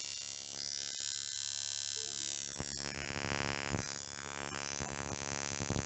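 DC CDI (capacitor-discharge ignition) firing sparks in quick succession, triggered at a simulated engine speed climbing toward its 5000 rpm rev limiter: a loud, steady electric buzz.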